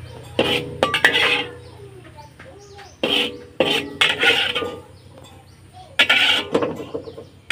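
Metal spatula scraping and clanking against a near-empty wok, in short bouts of quick strokes with pauses between them.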